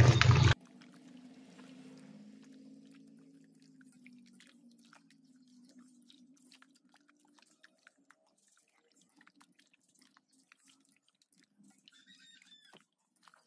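Faint wet squelching and small clicks of a hand kneading raw chicken pieces in a marinade of flour, salt and water in a metal bowl.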